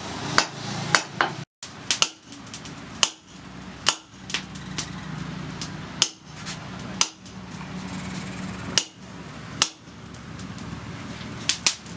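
Hand hammer striking steel on an anvil while forging blacksmith's tongs: about a dozen sharp, ringing blows at uneven intervals. A steady low hum runs underneath.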